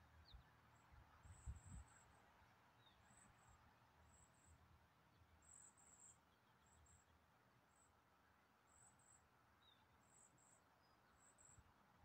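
Near silence with faint, short, high-pitched insect chirps repeating every second or so, and a few soft low bumps in the first two seconds.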